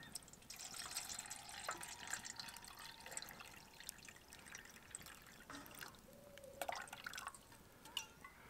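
Water poured from an insulated bottle into a titanium cook pot: a faint, steady trickle and splash.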